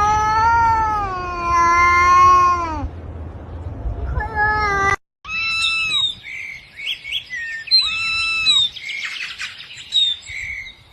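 A cat's long drawn-out meow lasting nearly three seconds, falling in pitch at its end, then a shorter meow. After an abrupt break, a run of short high-pitched chirping calls follows.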